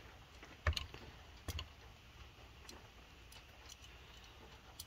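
Sparse light clicks and taps from hands working at a valve spring compressor on a cylinder head while the lock is fitted: two sharper clicks in the first second and a half, then fainter ticks and one more click near the end.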